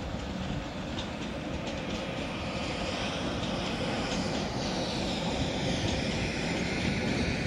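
Siemens EU44 'Husarz' electric locomotive and its passenger coaches rolling past slowly: a steady rumble of wheels on rail with faint clicks from the rail joints. A higher-pitched noise comes in about three seconds in as the coaches go by.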